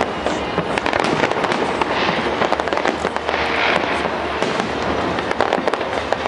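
Aerial fireworks going off in dense succession: continuous rapid crackling and popping bangs that overlap without a pause.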